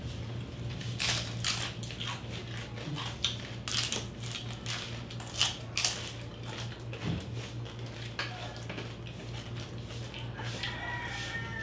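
Close-up crunching and chewing of crispy lechon skin (roast whole pig), eaten by hand. A run of sharp crunches comes in the first six seconds, followed by softer chewing.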